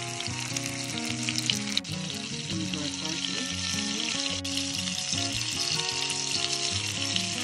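Minced garlic frying in hot fat in a pan, a steady crackling sizzle, over background music with sustained notes.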